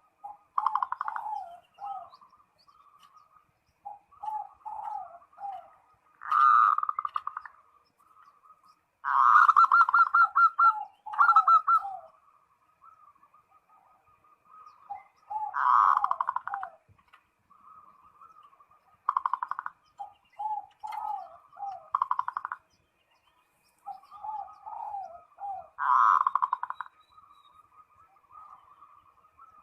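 Zebra dove (perkutut) cooing its territorial call, a phrase every few seconds. Each phrase is a quick run of notes followed by lower, stepping notes.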